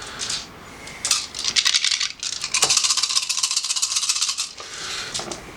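A handful of six-sided dice being shaken and rolled for an attack: a dense, rapid rattle of clicks lasting about three and a half seconds, with a short break partway through.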